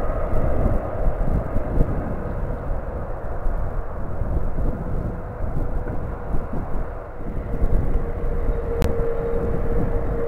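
Boeing 777-300ER's GE90 turbofan engines running, a steady low rumble with a whine that grows stronger near the end. A single sharp click sounds close to the end.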